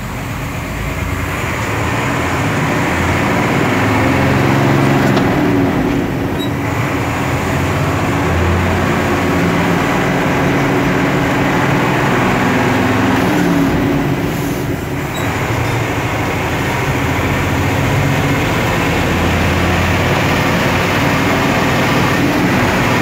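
Fire truck engine running under way, heard from inside the cab, its note rising and falling as it pulls along the road, with short dips about six and fifteen seconds in.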